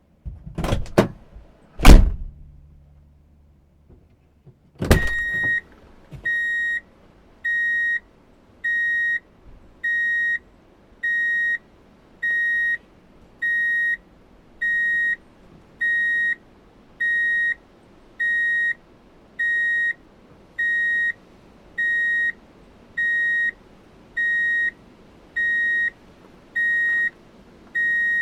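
A few knocks and a loud door bang about two seconds in, another bang near five seconds, then an electronic alarm beeping steadily at one high pitch, a little slower than once a second. The beeping is a door-open alarm tone used as a large vehicle's reversing alarm.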